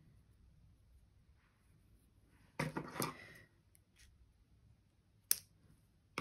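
Small craft scissors handled and snipping linen thread, with a short rustle of handling about two and a half seconds in and one sharp click near the end.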